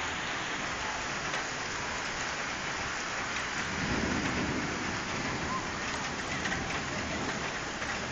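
Rain falling steadily on wet pavement, an even hiss, with a low rumble of thunder swelling about four seconds in.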